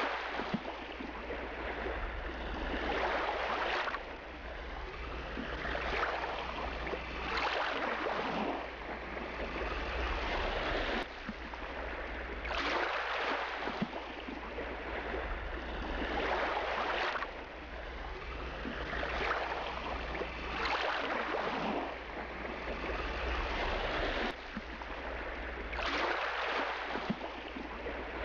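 Sea waves washing in and drawing back, a swell of surf noise every couple of seconds, over a low steady hum.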